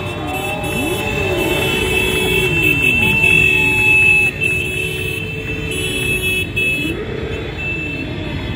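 Motorcycle engines passing on the street below, revving and dropping in pitch several times as they ride by, with a steady high tone underneath.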